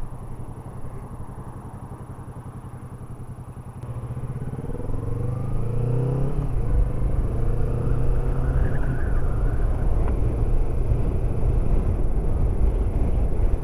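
Kawasaki Vulcan S's 649 cc parallel-twin engine running low and steady, then pulling away about four seconds in, its note rising as it accelerates before settling into a steady cruise, with low wind rumble on the microphone growing as speed picks up.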